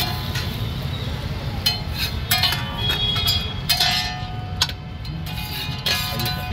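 Metal spatula clanking and scraping against a large flat steel tawa griddle, a series of sharp ringing clinks at an uneven pace, with several falling close together in the middle.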